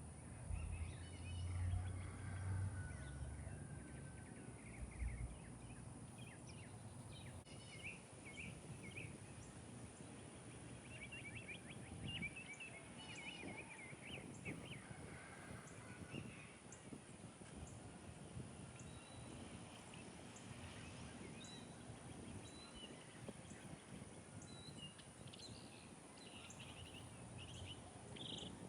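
Wild songbirds calling faintly, with scattered short chirps and chattering runs of notes. A low rumble sounds during the first few seconds.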